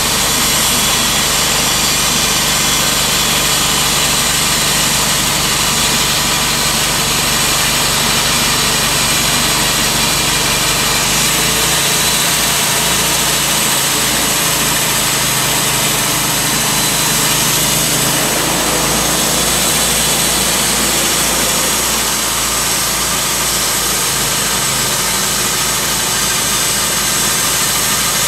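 Timberking B-20 portable band sawmill's engine running steadily. Its low hum shifts about eleven seconds in.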